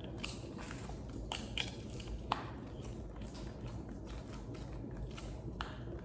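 A few faint, scattered clicks and ticks of a screwdriver tightening the screw that fixes a prosthetic foot to its pylon tube, over a low steady room hum.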